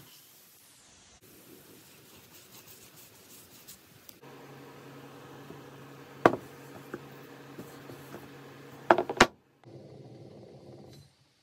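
Soft scraping and rubbing handling sounds, then a steady low hum with a sharp knock about six seconds in and a quick cluster of knocks near nine seconds, as charred wood blocks are handled and set down on a workbench.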